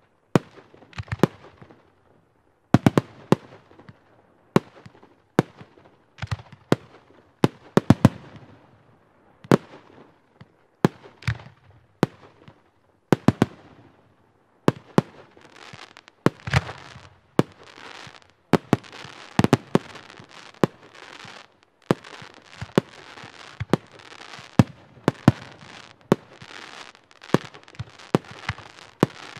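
Firework battery (the Mega Starlight Show combination) firing shot after shot: sharp reports about one to two a second, each trailing off in a hiss. From about halfway a dense crackling fills in between the shots.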